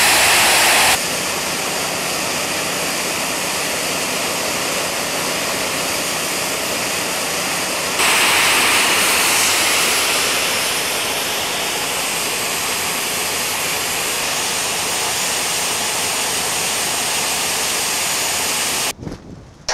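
Homemade gas turbine jet engine running at full power: a loud, steady roaring hiss, louder in the first second and again from about eight seconds in. The sound cuts off abruptly near the end, leaving a few clicks.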